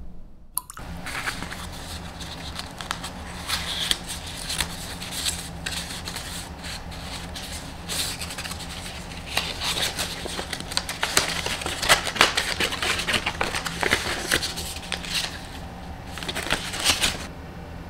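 Stiff paper packaging crinkling and rustling as hands unfold a folded paper tea package and handle paper tea sachets. It comes as a dense run of irregular crackles that starts about half a second in.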